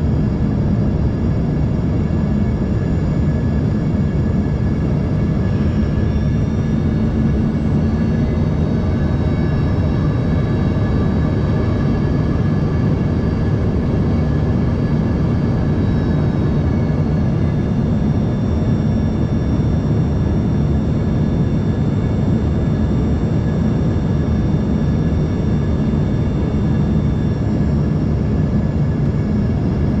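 Steady cabin noise of an Embraer ERJ-145 in flight: its rear-mounted Rolls-Royce AE 3007 turbofans running, with a deep rush of airflow. Several thin high engine whines sit above it and shift slightly in pitch now and then.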